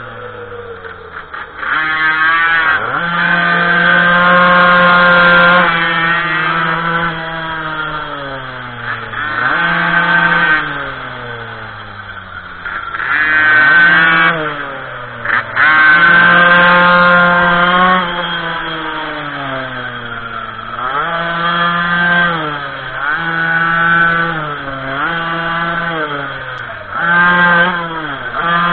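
Small two-stroke minimoto (pocket bike) engine being ridden hard, its high-pitched revs climbing, holding at full revs for a second or two, then dropping, over and over.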